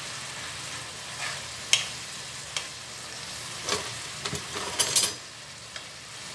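Sliced vegetables sizzling in a frying pan while a wooden spatula stirs them, knocking and scraping against the pan several times. The stirring stops about five seconds in, leaving a steady sizzle.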